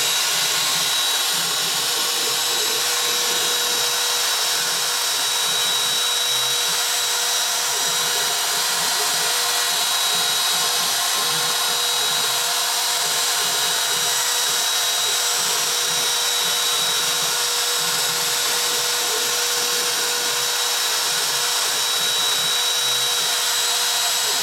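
Router spindle of a CNC routing table running at speed with a steady whine, its bit milling a wavy groove into a wooden panel.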